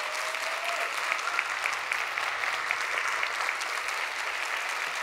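A large audience applauding steadily, a sustained ovation at the close of a speech.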